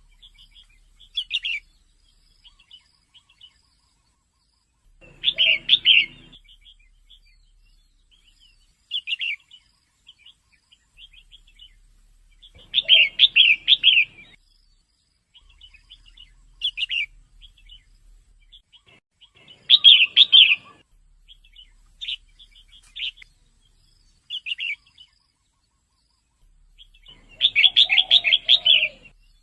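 Female red-whiskered bulbul calling in short bursts of quick chirping notes every few seconds, with quiet gaps between, the longest burst near the end.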